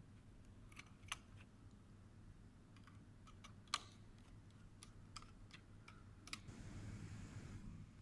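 Faint, irregular small clicks and ticks of wires being handled at a temperature controller's screw terminal block, the sharpest click a little under four seconds in. A short rustling noise follows near the end.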